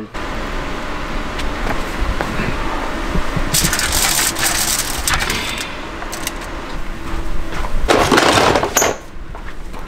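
Aluminium foil crinkling and metal tongs scraping as smoked fish are lifted off a smoker grate onto a foil-lined tray, with a crackly stretch about four seconds in and a louder rustling burst near the end.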